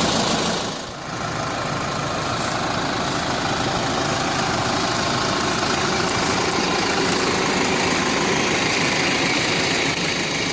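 New Holland T4.95 tractor's diesel engine running steadily, with a brief drop in level about a second in.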